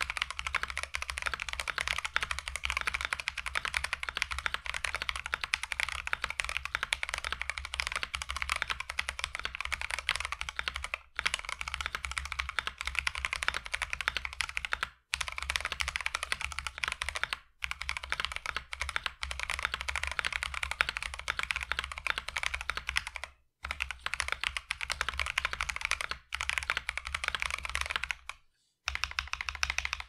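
Continuous fast typing on an Akko 3068B 65% mechanical keyboard with Akko jelly switches, lubed stabilizers, a steel plate and a plastic case. The PCB has been taped on its back (tape mod) to make the typing sound deeper and less hollow. The keystrokes are a dense stream of clicks, broken by a few brief pauses.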